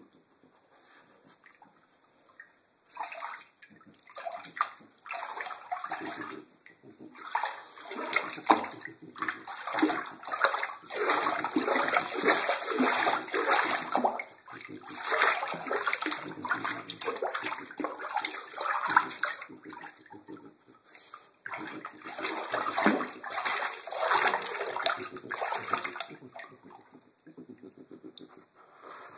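A French bulldog splashing and sloshing about in shallow bathwater in a bathtub, in irregular bursts that are sparse at first, busiest through the middle and thinning out near the end.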